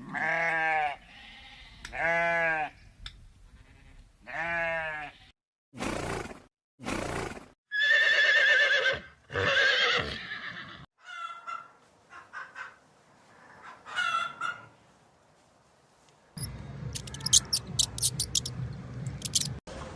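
A run of farm animal calls, several different animals one after another: three similar drawn-out calls in the first five seconds, two short noisy blasts, then more calls, and a noisy stretch with quick high clicks near the end.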